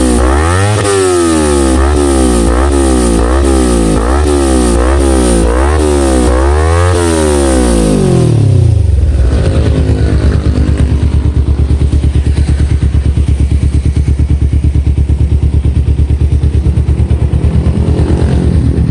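Kawasaki Ninja 250FI parallel-twin engine breathing through a Black Devil aftermarket exhaust, blipped repeatedly in quick throttle revs about once a second, then dropping back to a steady, pulsing idle about eight seconds in. The exhaust note is deep and bassy.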